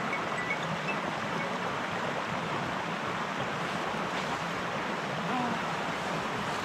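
A steady, even rushing noise of outdoor ambience, with no distinct events.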